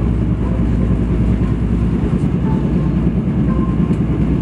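Steady low rumble of a passenger train running along, heard from inside the carriage.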